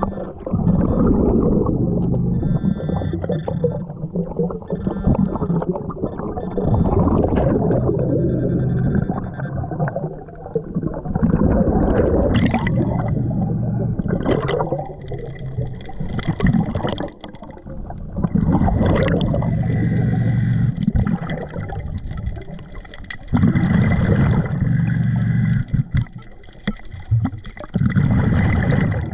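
Underwater breathing through a diving regulator: gurgling rushes of exhaled bubbles come every few seconds, separated by quieter inhalations. A steady low hum runs underneath.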